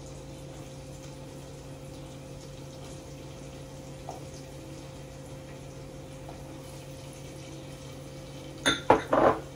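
Chopped onions and scallions frying in hot canola oil in a pot, a steady sizzle over a faint hum, with a couple of short louder sounds near the end.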